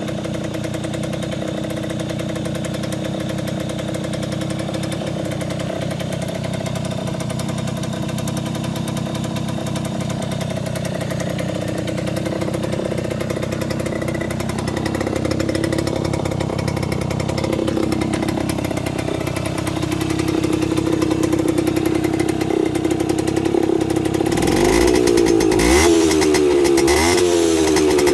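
Simson moped's M531 50 cc two-stroke single-cylinder engine with a Bing carburettor idling steadily, its pitch creeping up slowly. From about 24 seconds in it is revved up and dropped back several times in quick blips.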